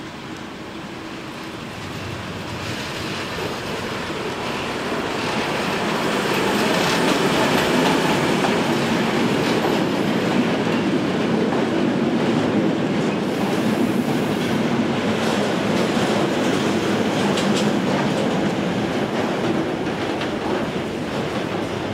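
A freight train of loaded car-carrier wagons, hauled by a diesel locomotive, passing close by. Its wheels roll with a clickety-clack over the rail joints, getting louder over the first several seconds and then staying steady.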